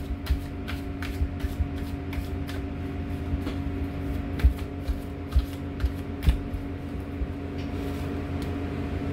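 A deck of tarot cards being shuffled by hand: a quick, irregular run of soft card slaps and riffles that thins out after about six seconds, over a steady low hum.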